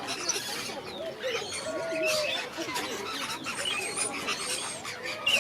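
Many aviary parrots calling at once: overlapping chirps, short whistles and squawks.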